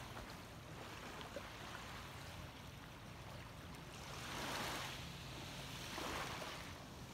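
Small waves lapping on a sandy, pebbly shore, with two louder washes of surf about four and six seconds in.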